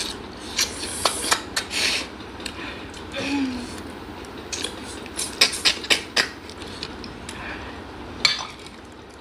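Spoons and dishes clinking: irregular sharp clicks and knocks of metal serving spoons against glass bowls and plates during a meal eaten by hand, with mouth sounds of eating between them.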